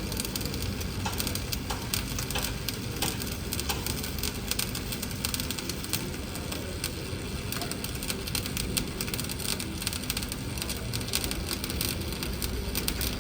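Electric arc welding: a continuous dense, irregular crackle over a steady low hum.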